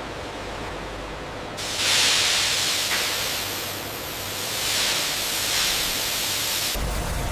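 A loud rushing hiss starts about a second and a half in, swells twice, and cuts off suddenly near the end, leaving a low rumble.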